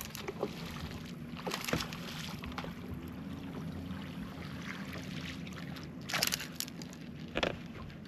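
Water splashing and sloshing as a hooked bass is brought to the boat, in bursts about a second and a half in and again around six and seven seconds, over a steady low motor hum.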